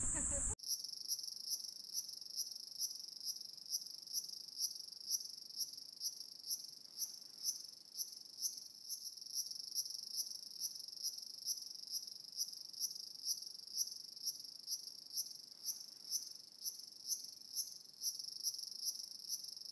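Insects chirping steadily: a high, even trill that pulses about twice a second.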